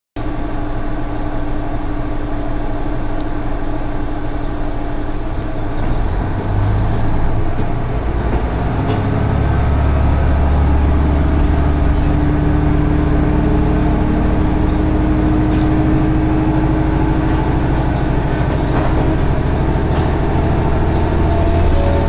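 Diesel railcar on the non-electrified Iiyama Line, heard from inside the car. About seven seconds in, the engine note deepens and grows louder as the train pulls away and picks up speed, then settles into a steady running drone.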